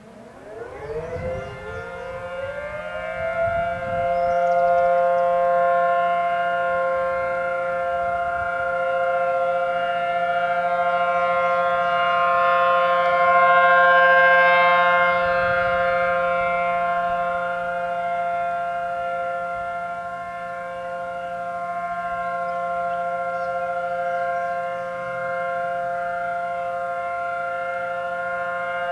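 Outdoor civil defense siren winding up over the first few seconds, then holding a steady chord of several tones. Its loudness slowly swells and fades.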